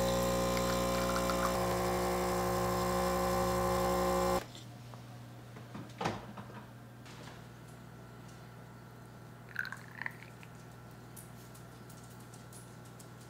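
Espresso machine pump buzzing steadily as it pulls a shot, its hum shifting slightly about a second and a half in, then cutting off suddenly about four seconds in. After that, only a few faint clicks and clinks.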